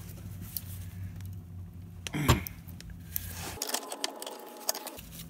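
Light metallic clicking and clinking of hand-held metal parts being worked at a bench, as a brake line is pried out of a cut-down steel holder bracket. One loud, brief noise with a falling pitch comes about two seconds in.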